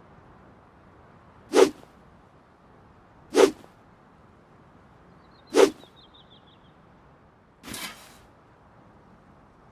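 Handmade longsword swung through the air: three short, sharp swishes about two seconds apart, then a softer, longer swish near the end.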